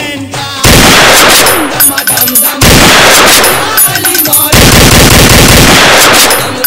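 Three long bursts of very loud, rapid cracking, each about two seconds long with brief gaps between, drowning out the procession music.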